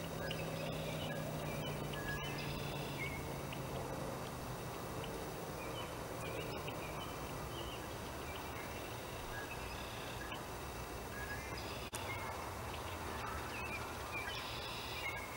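Outdoor pond ambience: a steady low background rumble with scattered short, high chirping bird calls. A low hum fades out about four seconds in, and there is a single sharp click near twelve seconds.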